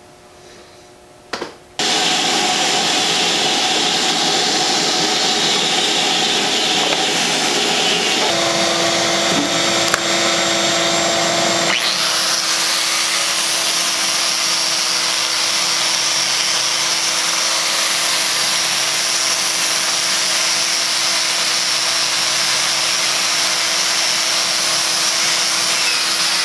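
Angle grinder with a wire cup brush scrubbing the bandsaw's metal table, running together with a shop vacuum whose hose pulls up the dust. The loud, steady machine noise starts about two seconds in; a steady whine joins a third of the way through, and the sound brightens a little before halfway.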